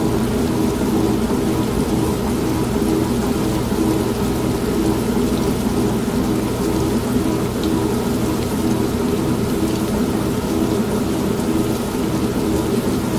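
An old manual washing machine humming steadily, mixed with continuous rain and rumbling thunder.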